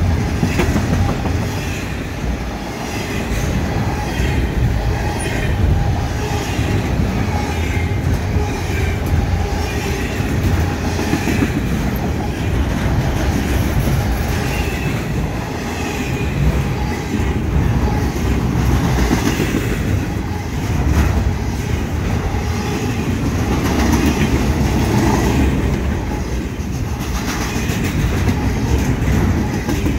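Intermodal freight cars rolling past close by at speed: a steady loud rumble with wheels clacking over the rail joints.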